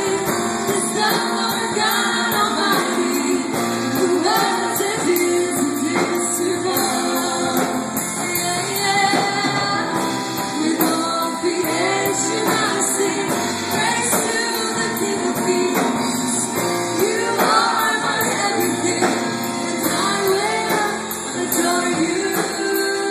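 Live worship band playing a song: a woman singing lead with backing singers, over acoustic guitar, violin, keyboard and drums.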